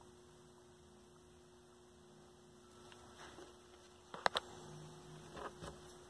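Faint steady electrical hum, with light handling of small dashboard bulb parts by hand and two quick sharp clicks a little past four seconds in.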